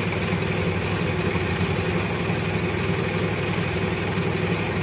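Bus's diesel engine idling steadily, heard from inside the driver's cab with the bus at a standstill.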